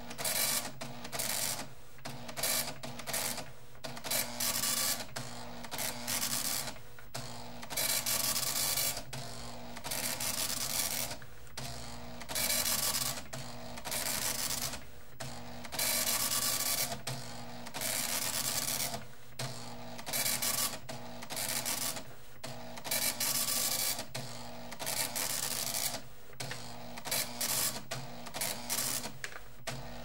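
Arc welding: harsh hissing noise in repeated bursts of one to two seconds, each broken off by a short gap, over a steady low hum.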